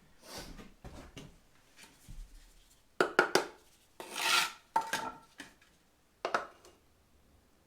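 Metal tool clinking and scraping while working wet concrete: a quick run of sharp knocks about three seconds in, a longer scrape right after, then a few single knocks.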